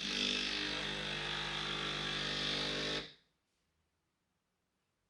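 Small electric motor running with a steady buzz for about three seconds, starting abruptly and then switching off.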